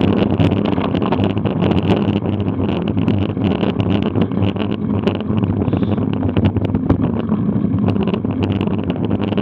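Steady wind rush over the microphone of a bicycle-mounted action camera while riding, with road and tyre rumble and many small clicks and rattles from the bike.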